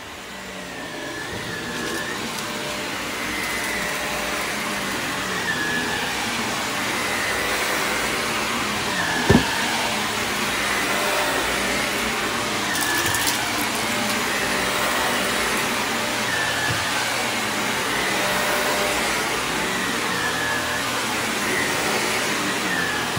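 Shark upright vacuum cleaner running over carpet, a steady roar with a high whine that dips briefly in pitch every few seconds. It grows louder over the first couple of seconds, and there is one short knock about nine seconds in.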